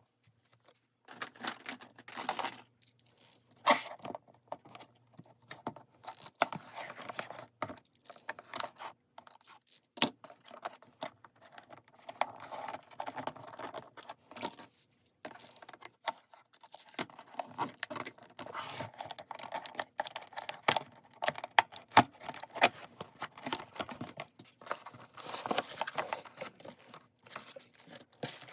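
Product packaging being handled and opened: irregular rustling, tearing and scraping with scattered sharp clicks, broken by short pauses.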